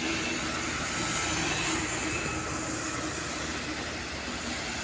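Hino coal truck pulling two loaded dump trailers, its engine running with a steady drone along with tyre noise as it travels the road.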